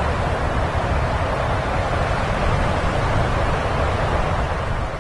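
Blizzard wind blowing steadily, with a heavy low rumble of wind buffeting the microphone.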